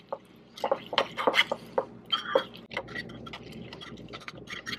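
Metal spoon stirring oats and almond milk in a ceramic bowl: irregular clinks and scrapes of the spoon against the bowl with a wet, mushy sound of the mixture.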